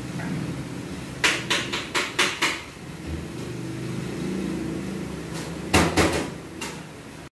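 A quick run of six sharp knocks, then three or four more a few seconds later, over a low steady hum.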